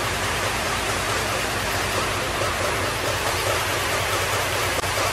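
Steady, loud rushing noise with a low hum under it, as from a fan running in the kitchen by the oven.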